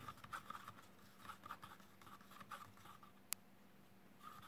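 Wooden stir stick scraping around a plastic cup while mixing two-part Sintafoam resin: faint, quick repeated strokes that pause about three seconds in and pick up again near the end. One sharp click sounds in the pause.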